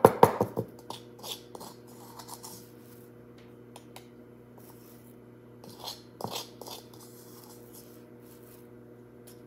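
Small clicks and knocks of things being handled at a kitchen counter, with a brief clatter about six seconds in, over a steady electrical hum.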